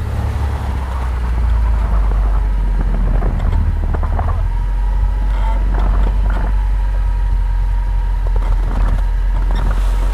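Off-road vehicle engine running steadily with a low rumble, with a few scattered knocks or clicks.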